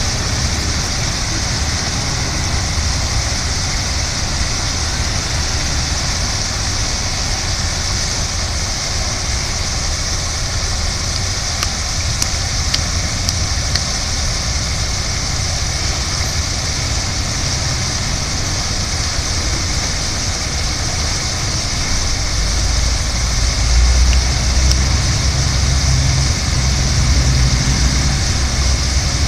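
Park fountain's central jet and ring of arcing jets splashing steadily into its pool, a constant hiss of falling water. A low rumble swells in the last several seconds.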